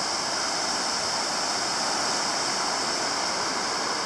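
Mist Falls waterfall rushing: a steady, unbroken noise of falling water that holds an even level throughout.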